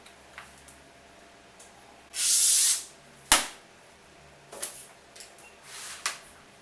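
A marble-pattern plastic sheet is scored with a long hissing scrape along a straightedge, then snapped along the score line with a single sharp crack about a second later. Lighter scrapes and taps of the sheet and cardboard being handled follow.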